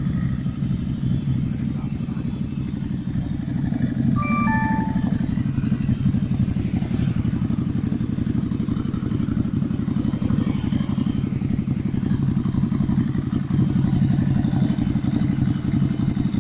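Ducati Scrambler's air-cooled L-twin engine idling steadily with an even, pulsing beat. A brief cluster of short high chirps sounds about four seconds in.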